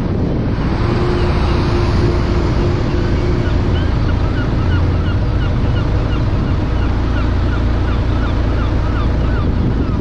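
Steady road and engine rumble from a moving car, with wind buffeting the car-mounted GoPro Hero 5's microphone. From about a third of the way in, short high chirps repeat at a little over two a second.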